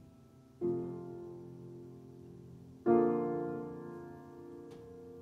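Grand piano playing the song's instrumental outro: a chord struck about half a second in and a louder one about three seconds in, each left to ring and fade.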